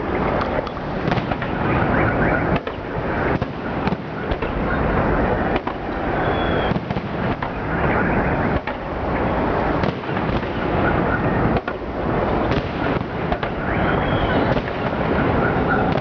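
Fireworks display: a dense, unbroken run of bangs and crackle, with many sharp reports close upon one another.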